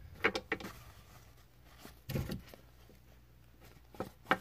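A few light clicks and taps, then a soft thump about two seconds in and two more clicks near the end: small plastic toy figures being handled and set down on a tabletop.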